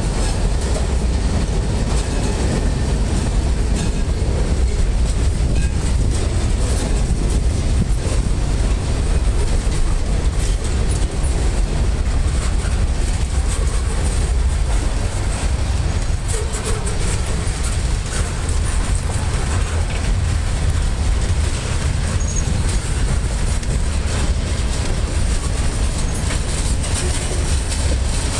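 Freight cars of a mixed manifest train rolling past close by: a steady loud rumble of steel wheels on the rails, with repeated sharp clicks from the wheels.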